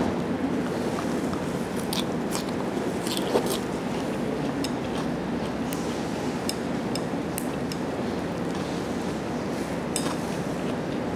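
Chopsticks clicking and scraping against a ceramic plate while picking apart a grilled mackerel steak, with the sharpest click a little over three seconds in. The clicks sit over steady background noise.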